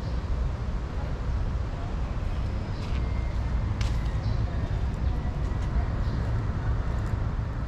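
Steady city traffic noise, a continuous low rumble of passing vehicles.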